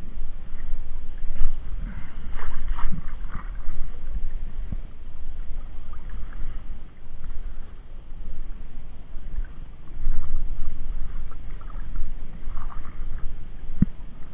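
Water splashing and sloshing as a wet gill net is pulled hand over hand out of the water, with an irregular series of small splashes over a steady low rumble.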